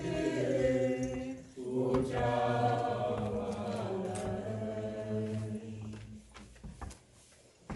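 A group of voices singing a slow hymn together on long held notes; one phrase ends about one and a half seconds in, and the next runs on and dies away about six seconds in.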